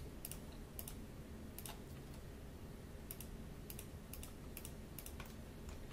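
Faint computer mouse clicks, irregular and often in quick pairs, over a low steady hum.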